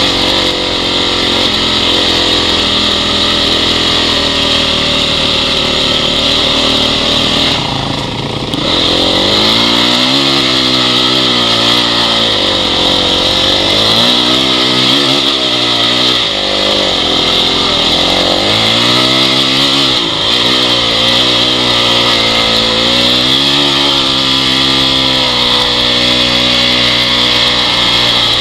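Honda CRF dirt bike's four-stroke single-cylinder engine running under load while riding, the revs rising and falling again and again with throttle and gear changes, with a short drop in revs about eight seconds in. A steady hiss runs over the engine throughout.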